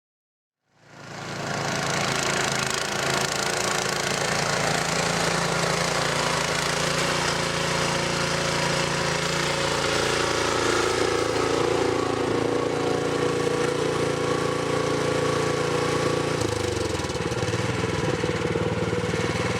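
Cub Cadet 2X 524 SWE two-stage snowblower running steadily under load in heavy wet snow, its small single-cylinder engine and auger churning. The engine note shifts lower about three-quarters of the way through.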